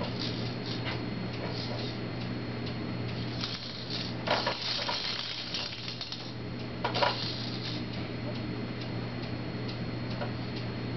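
Regular faint ticking, evenly spaced like a clock, over a steady low hum, with two louder brief sounds about four and seven seconds in.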